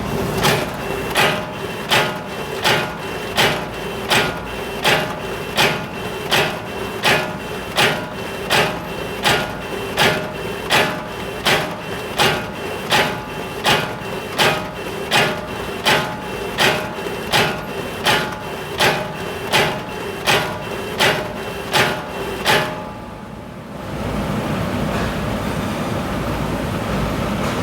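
Black-and-white production printers running, with a sharp clack repeating about one and a half times a second over a steady machine hum. The clacking stops about 22 seconds in, and a steady rumbling machine noise without clacks takes over.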